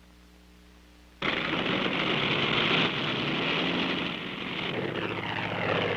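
Biplane's propeller engine running, cutting in suddenly about a second in and continuing steadily.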